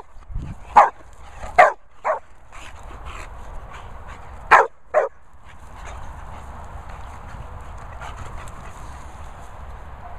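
A dog barking in short sharp barks, three close together and then two more a few seconds later, during rough play between a bulldog and a Labrador.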